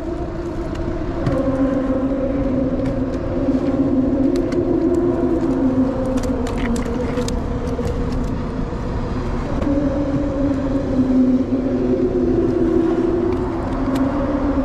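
Vehicle traffic crossing the bridge overhead: a steady droning hum that swells twice as cars pass, with a few light clicks about halfway through.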